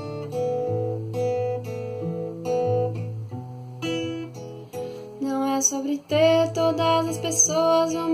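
Acoustic guitar playing picked chords over a bass line. About five seconds in, a voice comes in singing long held notes over the guitar.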